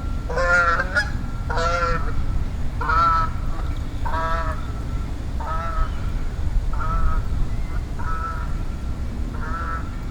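A goose honking repeatedly, about eight honks at a steady, even pace, over a steady low rumble.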